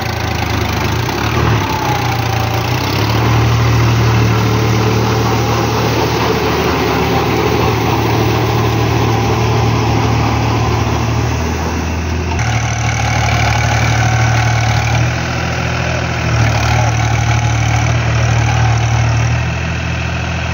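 Diesel tractor engine running steadily while pulling a rotavator through wet paddy-field mud. The engine note changes abruptly about twelve seconds in.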